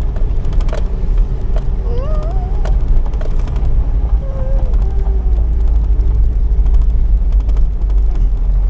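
Four-wheel-drive vehicle driving off-road: a steady low rumble with scattered knocks and rattles, and a few short wavering squeals about two and four and a half seconds in.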